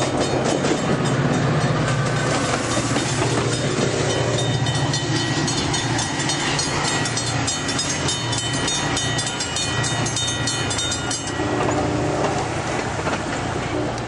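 Altamont Corridor Express bilevel passenger train passing close by, its wheels clattering rapidly and steadily over the rails. About eleven seconds in, the clatter thins out and a steadier sound with a few low tones takes over.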